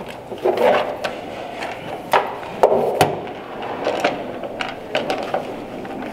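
Handling knocks and clicks as a wireless mic receiver and an accessory tray are picked up and set onto the top of a portable PA speaker. An irregular run of sharp knocks, the loudest a little under three seconds in.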